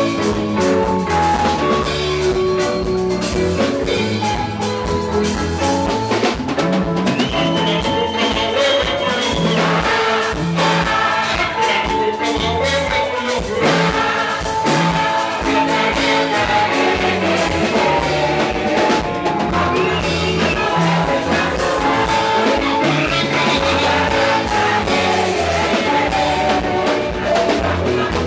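A band playing music with a drum kit keeping a steady beat under melodic lines.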